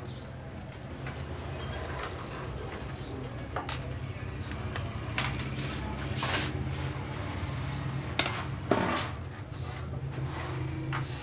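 Screwdriver and metal parts clicking and clinking as screws are undone on a buttonhole sewing machine: scattered taps and scrapes over a steady low hum.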